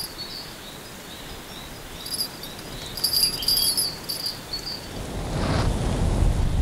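Small bite-alarm bell clipped to a fishing rod tip jingling in short, faint bursts, about two seconds in and again around three seconds in: a fish is picking at the bait. Wind noise on the microphone rises near the end.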